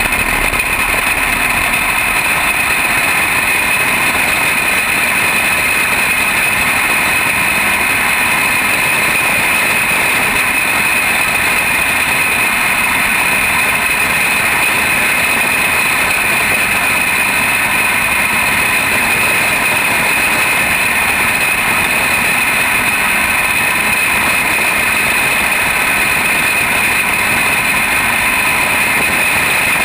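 Junior champ kart's engine running hard at a steady, high pitch as the kart laps, heard close up from the kart itself.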